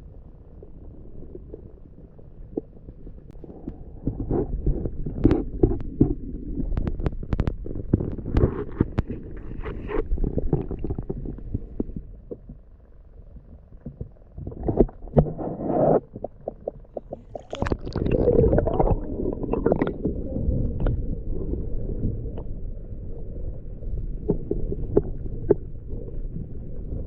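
Muffled underwater water noise picked up by a submerged camera: a low rumble with many scattered clicks and knocks, easing for a moment about halfway through.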